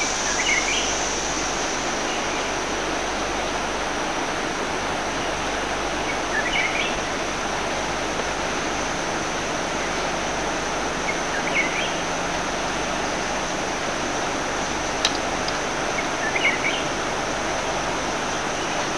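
Forest ambience: a steady hiss under a continuous high insect drone, with a short bird chirp repeating about every five seconds.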